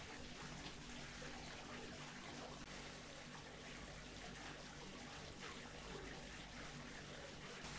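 Water curtain of a paint spray booth running: a steady wash of water pouring and splashing down the booth's back wall, with a faint steady hum underneath.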